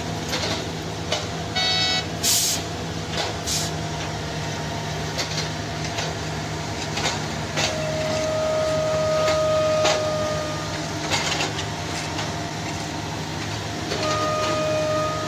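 Heavy diesel machinery running steadily, with scattered clanks and knocks. A steady whine comes in twice, about eight seconds in and again near the end.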